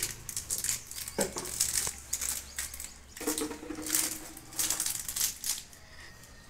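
Plastic wrapping of a medicine dropper crinkling and rustling in the hands as it is handled and pulled at to open.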